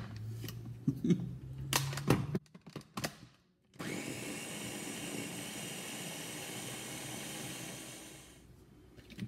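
Several sharp clicks and knocks as the Ninja blender's lid and motor head are fitted onto the pitcher, over a low hum. Then, a little under four seconds in, the blender runs steadily for about four and a half seconds, puréeing spinach, milk and banana, and winds down near the end.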